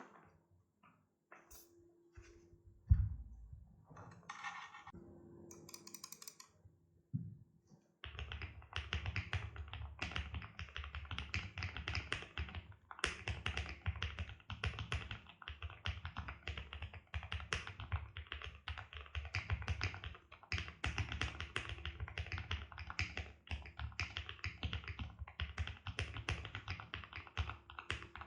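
QK65 aluminium-case mechanical keyboard with lubed Gateron Blue Bubblegum linear switches on a POM plate, typed on fast and steadily from about eight seconds in: a dense run of deep, rounded key clacks. Before that there are only a few scattered key clicks and one sharp thump.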